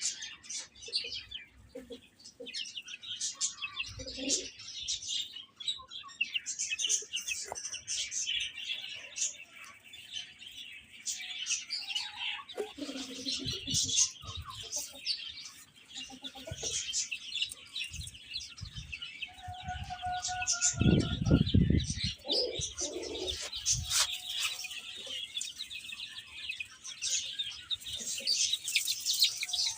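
Many baby chicks peeping and chirping continuously. Low thumps and rumbles come in a little before halfway and are loudest about two-thirds of the way through.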